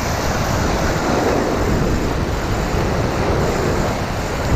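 Surf washing on the shore with wind buffeting the microphone, a steady rushing noise, and a brief low knock near the end.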